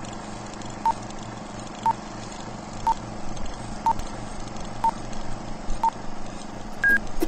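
Film-leader countdown sound effect: a short beep once a second, six times, then a single higher-pitched beep near the end, over the steady whirring clatter of an old film projector.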